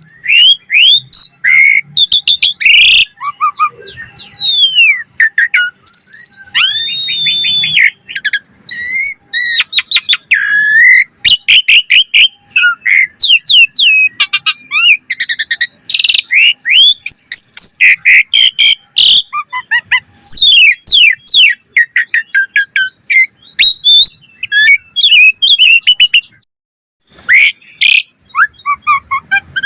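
Javan pied starling (jalak suren) singing a fast, varied song: whistles, rising and falling sweeps, rapid chatters and clicky notes in quick succession, with a short break near the end.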